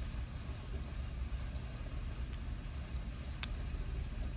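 A steady low background rumble, with one faint short click about three and a half seconds in.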